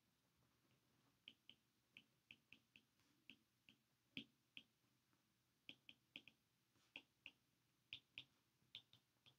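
Faint, irregular clicks of a stylus tip tapping the glass of a tablet screen during handwriting, coming in small clusters a couple of times a second over near silence.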